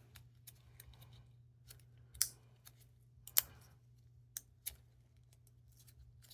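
Small sharp clicks and scrapes of the clock-battery tray in a Canon EOS 40D being pried and worked loose, the two loudest about two and three and a half seconds in, with a few lighter ticks after.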